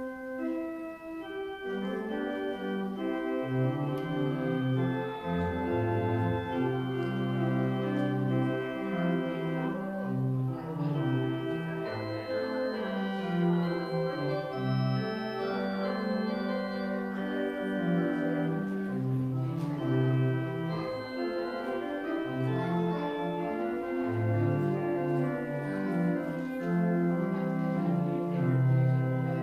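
Church organ playing a postlude of sustained chords over a moving bass line, starting right at the beginning after a moment of quiet.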